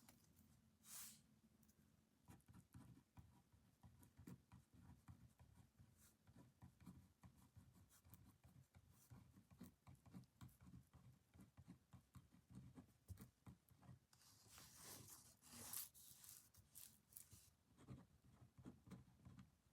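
Faint scratching of a pen writing on paper, a quick run of small strokes, with a louder rustle about three-quarters of the way through.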